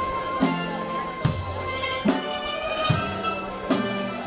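Steel pan band playing, with ringing pitched pan notes over a steady low drum beat a little more than once a second.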